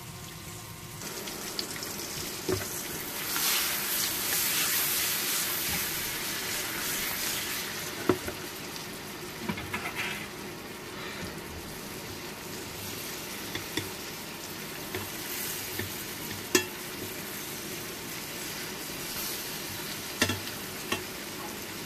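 Green bell pepper pieces sizzling as they fry in butter in a frying pan, with a louder stretch of sizzle a few seconds in. A few sharp clicks of metal tongs on the pan as the pieces are turned.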